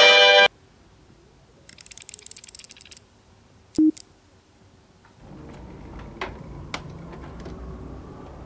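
A brass music sting cuts off half a second in. Then come small plastic clicks: a quick run of clicks, a single knock, and a few light clicks as the Lego Batcave study's hidden bookcase is slid open.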